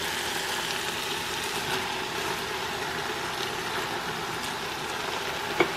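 Onion, tomatoes and zucchini frying in an Instant Pot's stainless inner pot on sauté: a steady sizzling hiss with small crackles. A single sharp click near the end.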